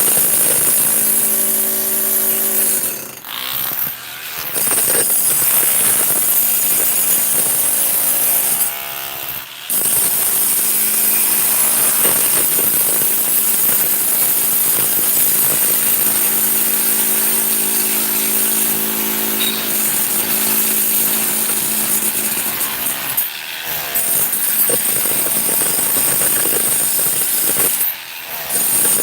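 A power tool running loud and almost without a break, a steady noise with a hum under it, cutting out briefly about four times.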